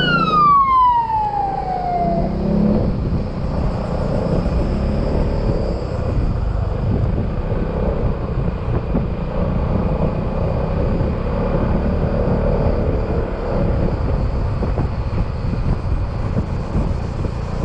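Yamaha XMAX scooter's single-cylinder engine running steadily under way, mixed with wind and road noise. At the very start a high whistling tone shoots up and then glides down over about two seconds.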